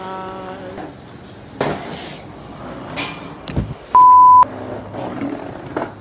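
A steady single-pitched beep tone, about half a second long and the loudest sound, comes about four seconds in; it is the kind of beep edited in over a video. Around it are a few short knocks.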